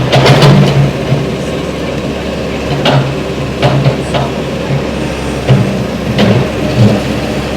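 Heavy diesel demolition machinery running steadily, with repeated sharp knocks and crashes of the building being broken apart.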